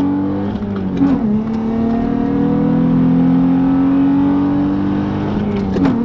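Infiniti G35's 3.5-litre VQ35 V6 accelerating through the gears, heard from inside the cabin. The engine note drops at an upshift about a second in, then climbs steadily for about four seconds before dropping again at the next shift near the end.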